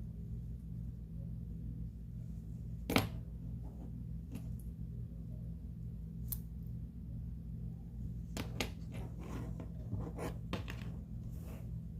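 Scattered clicks and taps of small objects being handled over a steady low hum. The sharpest click comes about three seconds in, and a quicker run of them follows near the end.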